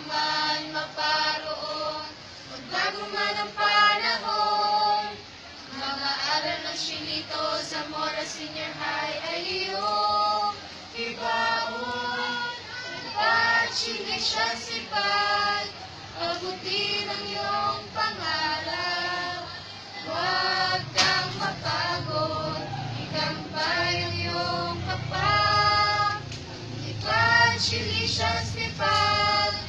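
A choir singing a hymn, many voices together in sung phrases.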